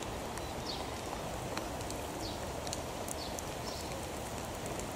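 Rain falling steadily on a puddle and wet pavement: an even hiss with many sharp drop ticks, and short high chirps every half second or so.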